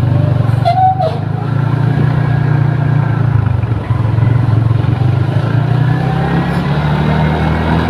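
A road vehicle's engine running close by, a steady low drone that rises in pitch near the end. A short high tone sounds about a second in.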